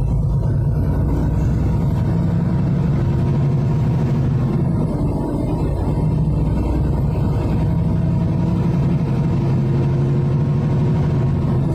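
Road noise inside a moving car: a steady low rumble from the tyres and engine at cruising speed.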